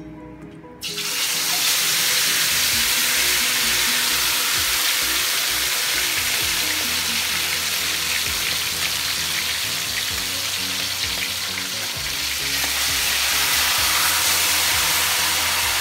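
Marinated chicken pieces going into hot oil in a wok, setting off a loud, steady sizzle of deep frying that starts suddenly about a second in. Soft background music runs underneath.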